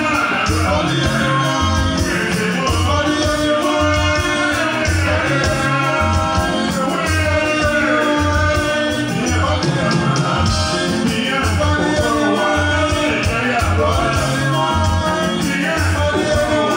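Music with a singing voice over a steady, repeating bass line.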